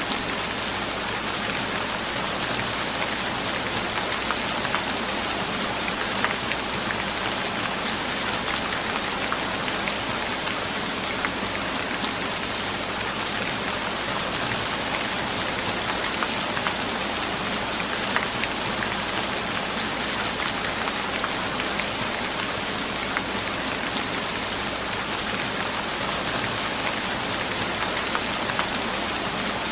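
Steady rain falling, an even hiss with small drops pattering on a surface.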